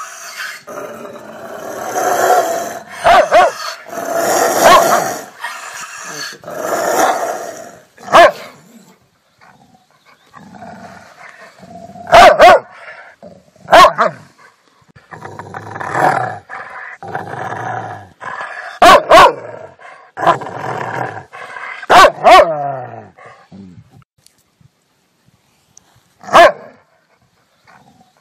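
Rottweiler barking and growling. Rough, drawn-out growls and barks fill the first several seconds, followed by single sharp, loud barks separated by short pauses.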